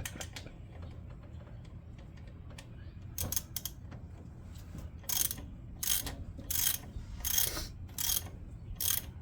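Hand ratchet wrench clicking in a series of short back-and-forth strokes, about one and a half a second, loosening a fastener on a truck's alternator. The strokes start about halfway through, after a few scattered clicks, over a steady low hum.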